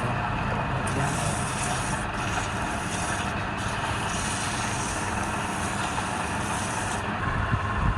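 Wood lathe running, with the steady hiss of a tool working the spinning wood. The hiss drops out briefly twice and stops about seven seconds in.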